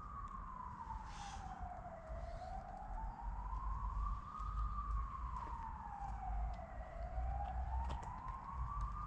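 A siren wailing in the distance, its pitch rising and falling slowly about every four and a half seconds. Under it is a low rumble of wind on the microphone.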